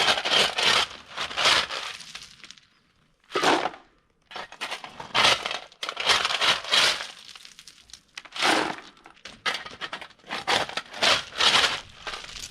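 Crushed-stone ballast crunching and rattling in about five irregular bursts as it is worked by hand, with short silent gaps between them.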